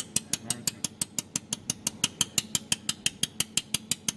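Jewelry laser welding machine firing repeated pulses at a frequency setting of about 6, each pulse a sharp click, about six a second in an even rhythm.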